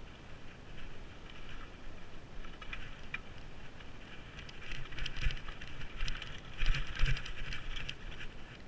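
Mountain bike riding over a dirt and gravel track: tyres crunching and crackling on the ground, with knocks and rattles from the bike over bumps that get louder and busier about two-thirds of the way through.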